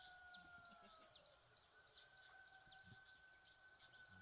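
Faint rural outdoor ambience: rapid, repeated high chirps, about three or four a second, with a faint steady whistling tone that drops out about a second in and returns about two seconds in.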